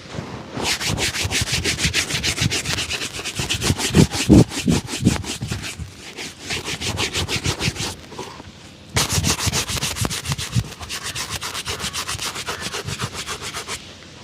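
A shoe being brushed or buffed in a shoe shine: fast back-and-forth rubbing strokes, about five or six a second, in two bouts with a short pause between them.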